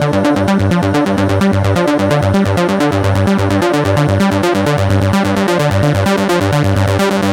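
Electronic dance music with synthesizer, a fast steady beat and a stepping bass line.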